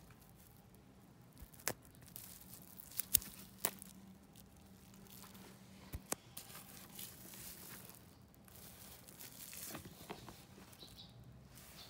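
Hands handling a leather handbag: soft rustling of leather and fabric lining, with a few sharp clicks and taps, the loudest about three seconds in and another pair near six seconds.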